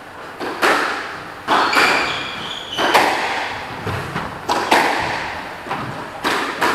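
A squash ball being struck by racquets and smacking off the court walls during a rally, sharp echoing hits every second or two. Short high squeaks come in between, from shoes on the wooden floor.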